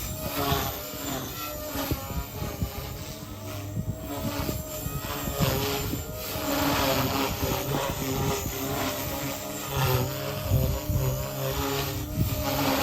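Blade Fusion 180 SMART micro RC helicopter in flight: its electric motor and rotors whine steadily, the pitch wavering up and down as rotor speed changes, over an uneven low rumble.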